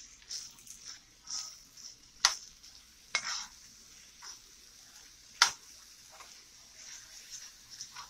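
A metal spoon stirs chopped radish and greens in a hot metal pot, which sizzles steadily. The spoon clinks sharply against the pot about three times; the loudest clink comes about five and a half seconds in.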